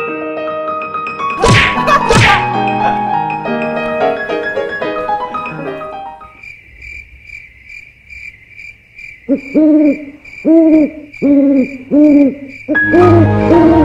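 Edited sound effects: a short musical jingle with two quick whooshing sweeps, then a cricket-chirp effect pulsing about three times a second. Over the chirps an owl-like hoot sounds five times, about 0.7 s apart, the usual gag for an awkward silence.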